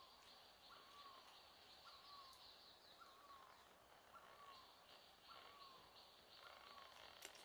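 Faint forest ambience: a bird repeats a short whistled call about once a second over a steady high insect buzz, with a single sharp click near the end.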